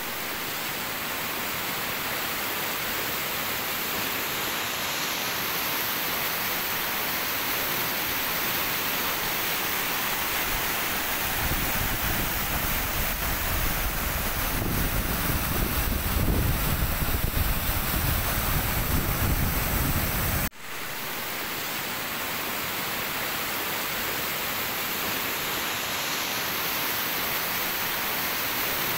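River rapids rushing over rocks and boulders, a steady loud rush of whitewater. From about a third of the way in, a low rumble on the microphone joins it, and about two-thirds through the sound cuts out for an instant and comes straight back.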